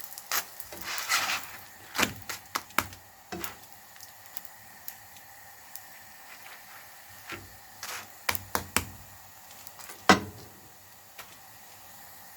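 Scattered sharp clicks and light knocks of kitchen handling, a few close together near the start, a cluster about eight seconds in and one louder knock about ten seconds in, over a faint steady hiss.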